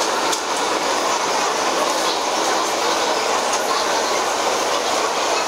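Steady hubbub of a large seated crowd talking at once in an ice hockey arena, no single voice standing out.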